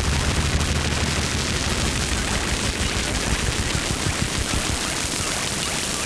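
Experimental noise music: dense crackling and hiss across the whole range. A low hum underneath breaks up into rumbling crackle about a second in.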